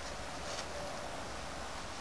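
Steady background hiss of room tone, with no distinct event.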